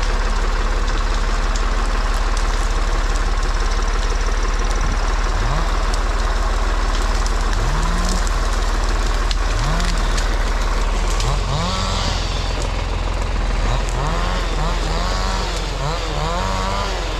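Engines running: a steady low engine drone, with an engine revving up briefly again and again, the revs coming more often near the end.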